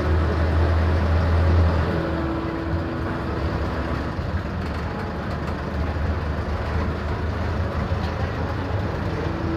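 A minibus's engine and road noise while it drives along a dirt forest track, heard from inside the cabin: a steady low drone, a little louder in the first two seconds.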